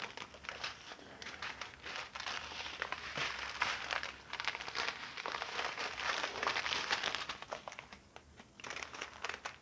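Small sealed plastic bags of diamond-painting drills crinkling as hands sort through the pile, a dense run of fine crackles that eases off briefly near the end before one more burst.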